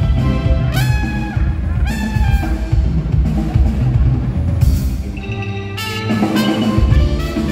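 A band playing live, led by a drum kit with bass drum and snare under a pitched melody line that slides up in pitch about a second in and again a second later.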